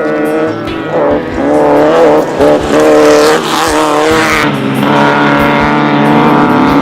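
Off-road race vehicle engines revving hard, pitch rising and falling over and over, then settling into a steadier high-revving run later on.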